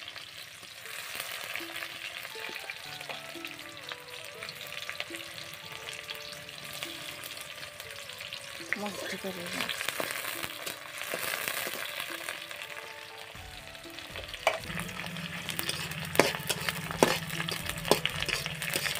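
Sliced onions sizzling in hot oil in a wok over a wood fire. Near the end a wooden spatula stirs them, with sharp scraping knocks against the pan.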